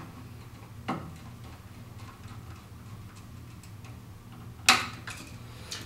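Screwdriver tightening a terminal screw on an electrical outlet: faint small ticks and clicks as the screw turns, with a sharper click about a second in and a louder one near the end.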